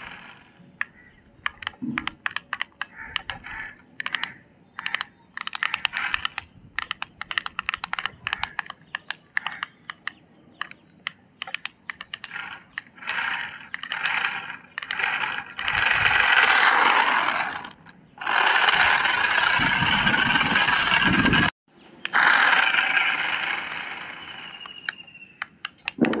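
Rapid plastic clicking of a toy car's two-button wired controller as its buttons are pressed over and over. From the middle on, it is broken by several loud stretches of rushing noise a couple of seconds each, one of them with a deep rumble.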